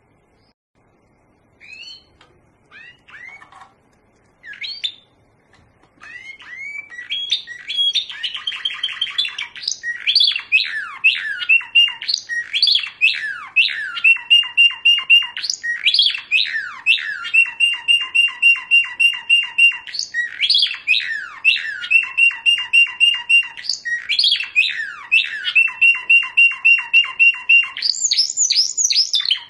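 Caged male European serin singing. A few short separate chirps come in the first seconds, then from about six seconds a continuous, fast song of rapid repeated notes and long buzzing trills.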